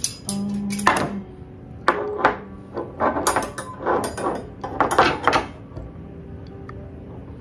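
Thin black metal wire pieces of a cookbook holder clinking and knocking against each other and tapping on the countertop as they are fitted together. Irregular sharp clicks, some with a brief metallic ring, come thickest in the middle.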